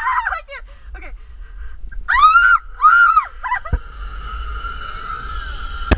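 A woman screaming in short high-pitched shrieks, two of them about two and three seconds in. A clunk just before four seconds, then a zipline trolley running along the steel cable with a steady high whine over wind rumble.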